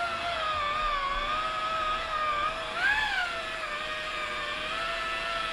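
Electric rotary polisher running with its pad on car paint, buffing out sanding scratches: a steady motor whine that wavers slightly in pitch and rises briefly about three seconds in.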